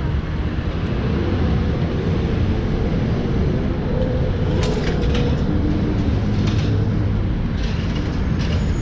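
Street traffic with an articulated city bus passing close by: a steady low rumble, with a few light clicks about halfway through and again near the end.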